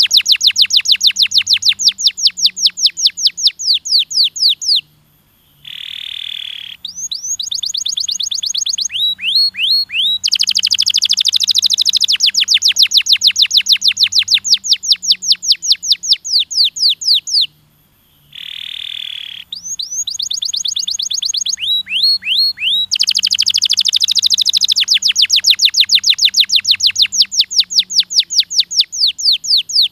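Domestic canary singing: long rapid trills of quick falling notes, about five or six a second, broken twice by a short gap, a single steady whistled note and a few quick chirps before the trill resumes.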